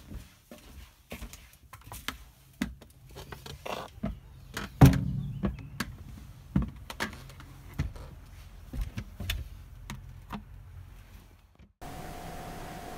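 Irregular handling clicks and knocks as a taped painting board is carried and set down, with one loud thump about five seconds in. Near the end it cuts to a steady hiss with a faint hum.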